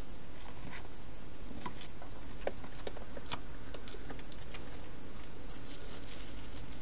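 A wild hedgehog moving about at a clear plastic feeding box: a scatter of small clicks and rustles, thickest a couple of seconds in, over a steady hiss.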